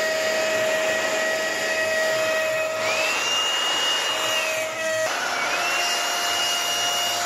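CNC router spindle cutting a toy-truck profile into a wooden board, with a vacuum hose nozzle running right beside the bit; together they make a steady whine and rush of air. A higher tone rises, holds for a second or two and falls back, twice.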